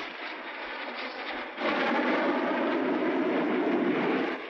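Tu-104 jet airliner's engines running: a steady noisy roar that swells markedly about one and a half seconds in and falls back just before the end. The engines are humming again after being silenced.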